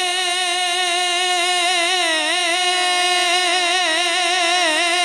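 Male naat reciter singing a Punjabi naat unaccompanied into a microphone. He holds a long, wavering, ornamented note between lines, over a steady droning tone.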